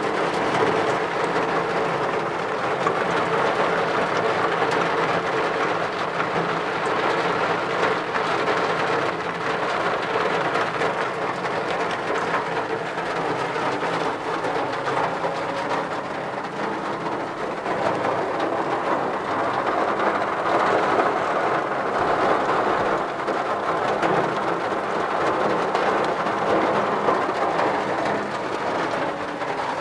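Steady rain falling on the roof and windows of a Citroën C15 van, heard from inside the cab.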